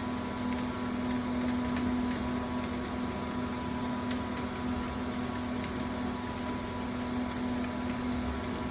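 A steady machine-like hum with a low, even tone and higher faint tones over a background hiss, with a few faint scattered ticks.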